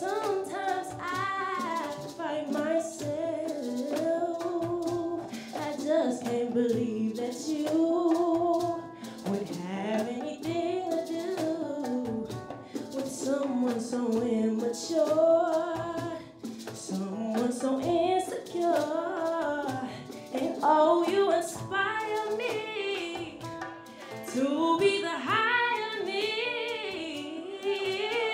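Live song: a female vocalist singing a flowing melody, accompanied by acoustic guitar and light hand percussion.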